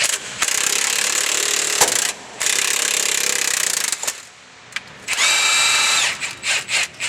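Impact wrench hammering in two bursts of about a second and a half each, driving a ball joint press to push the upper ball joint out of a 2012 Ram 2500's steering knuckle. A shorter burst with a steady whine comes near the end, followed by a few quick blips. The joint comes out easily, "like butter".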